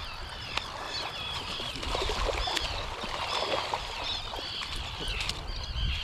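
A flock of seabirds calling over and over, many short high calls overlapping, over a low steady rumble.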